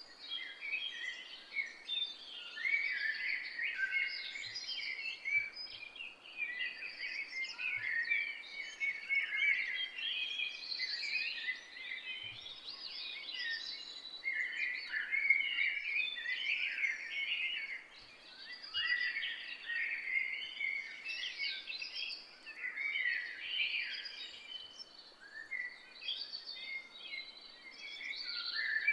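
Several songbirds singing and chirping at once, a dense chorus of short overlapping calls and trills, over a faint steady background hiss.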